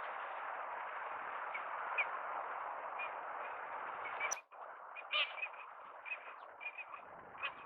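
Small wild birds chirping with short, repeated high calls over a steady rushing background noise. About four seconds in, the sound cuts sharply with a click, the rushing drops away, and the chirps go on more clearly and more often.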